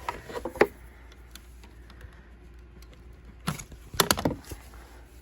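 Clicks and knocks of a power cord and its plug being handled and set up for plugging in, in two short clusters: one at the start and one about three and a half seconds in.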